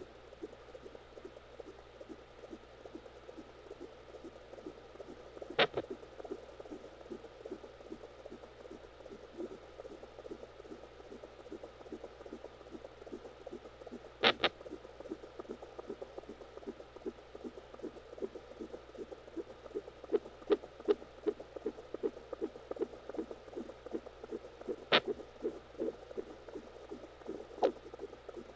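Home fetal Doppler picking up a fast, even fetal heartbeat as a rapid pulsing whoosh. Over it, four or five sharp, loud thumps land several seconds apart: the fetus hiccuping.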